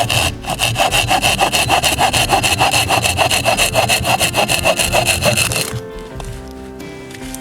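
Hand saw cutting through wood with rapid, even back-and-forth strokes. The strokes stop suddenly about six seconds in, and background music carries on.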